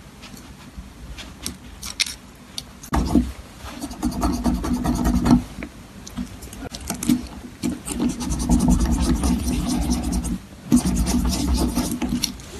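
A knife blade scraping and grinding against a metal watch bracelet while a link screw is worked loose, with a few small clicks at first and then two long stretches of scraping.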